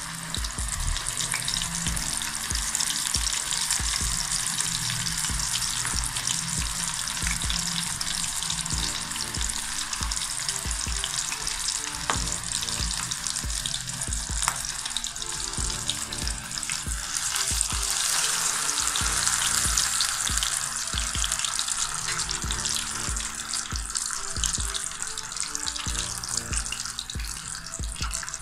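Batter-coated fish deep-frying in hot oil in an aluminium karahi: a steady, dense sizzle of oil bubbling around the fish.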